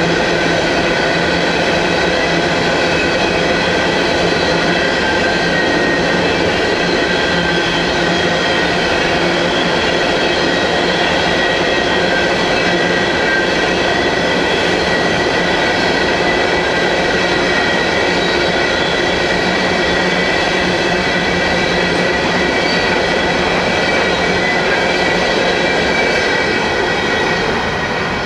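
Open-top hopper cars of a unit rock train rolling past: a steady rumble of steel wheels on rail with continuous high wheel squeal, fading slightly near the end as the last car goes by.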